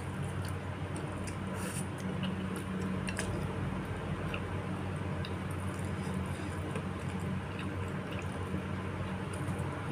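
Wet chewing and slurping of meatball soup, with a few light clicks scattered through, over a steady low hum.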